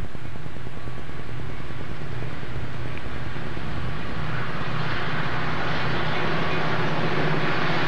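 Amtrak diesel-hauled passenger train approaching: a steady locomotive rumble with engine and rail noise that grows louder from about halfway through.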